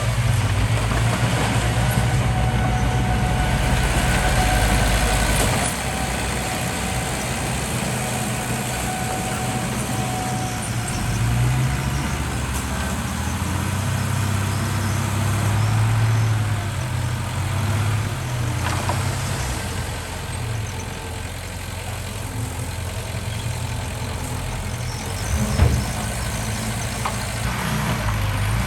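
Diesel engines of heavy earthmoving machinery (bulldozer and dump trucks) running and working, the engine note swelling and easing, with one sharp knock near the end.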